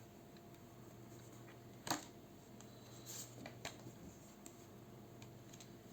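Quiet room tone with a few short soft clicks, the loudest about two seconds in.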